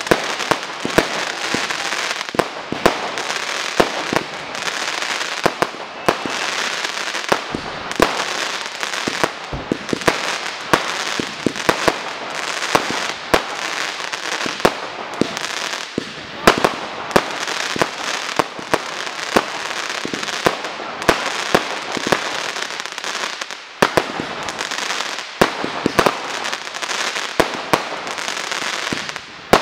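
Fireworks display firing shot after shot: sharp bangs come several times a second over a constant crackling hiss of launches and bursting stars, easing briefly about three-quarters of the way through.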